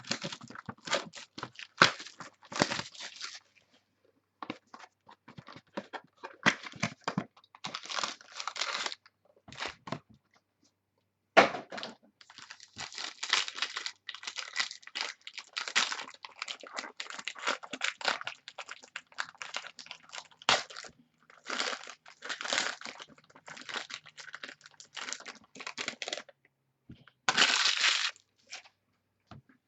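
Plastic wrapping on a box of football trading cards being torn open and crinkled, in irregular rips and crackles that pause briefly partway through, with a louder rip near the end.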